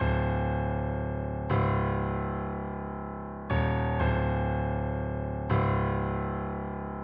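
Music: slow, sustained keyboard chords. A new chord is struck every one to two seconds and left to fade.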